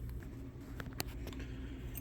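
Faint handling noise: a few light clicks, the sharpest about a second in, over a low steady hum.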